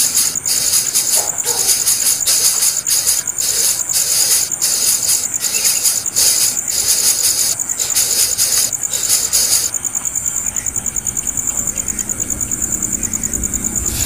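Loud, high-pitched insect chorus, shrill and steady, broken by short gaps several times a second at first; from about ten seconds in it runs on without gaps as an even, rapid trill.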